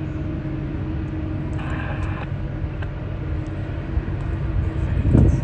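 Airliner jet engines running with a steady low rumble and hum, rising louder near the end, with a short hiss about two seconds in.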